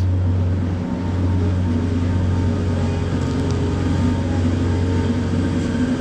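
A motor vehicle's engine running steadily: a low, even hum with a few fainter steady tones above it.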